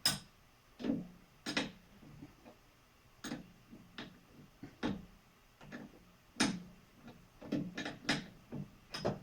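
Irregular metallic clicks and knocks, about a dozen, as an exercise-bike pedal is twisted and pushed against the crank arm. The thread will not catch and the pedal is not going in.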